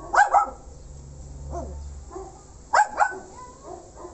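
A dog barking: two quick double barks, the first right at the start and the second about three seconds in.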